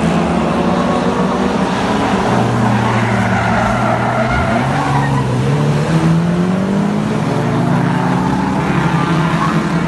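Engines of several stock cars racing around an oval, running hard and overlapping, with one engine's pitch rising about four seconds in as it revs through a bend.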